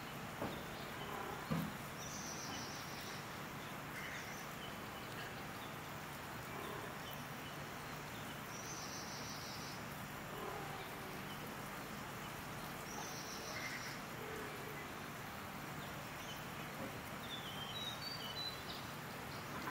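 Outdoor ambience: a steady low hum under three brief insect buzzes, each about a second long, with a few bird chirps near the end and a soft thump about a second and a half in.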